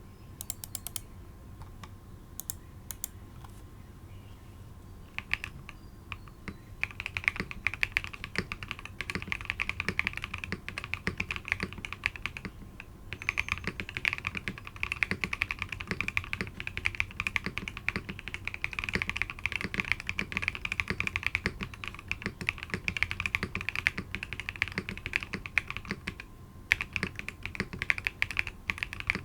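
Typing on a Geonworks Frog TKL mechanical keyboard with WS Onion switches (polycarbonate top housing, nylon bottom housing, POM stem) on an aluminium plate. A few scattered keystrokes at first, then fast continuous typing from about seven seconds in, with a brief pause after about twelve seconds and another near the end.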